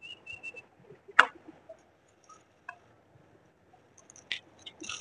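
Faint scattered small clicks and rustles, with one sharper click about a second in and a few more near the end.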